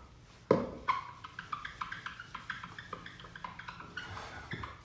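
A click about half a second in, then a handheld eraser rubbing back and forth on a whiteboard in many quick, short, slightly squeaky strokes.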